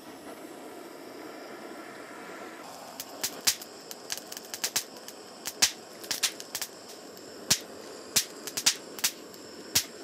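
A butane torch hisses against grill charcoal. From about three seconds in, the charcoal crackles with many sharp, irregular pops as it catches and throws sparks.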